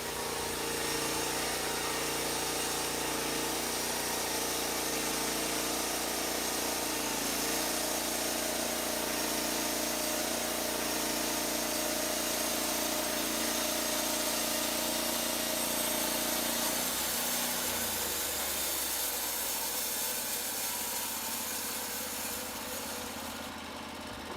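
Norwood LumberPro HD36 portable bandsaw mill running: its engine runs at speed while the band blade saws through a log. The engine note drops about two-thirds of the way through, and the cutting noise fades toward the end.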